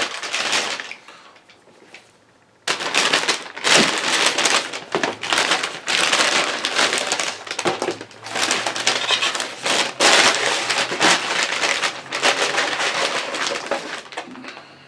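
Paper takeout bag crinkling and rustling as it is handled and food boxes are pulled out of it. There is a quiet pause of about two seconds near the start, then almost continuous crinkling in uneven bursts.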